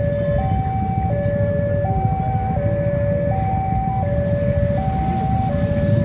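Railway level-crossing warning alarm sounding its two-tone signal, a higher and a lower tone alternating evenly about every three-quarters of a second, the warning that a train is approaching. Beneath it is the low rumble of engines, and a hiss joins about four seconds in.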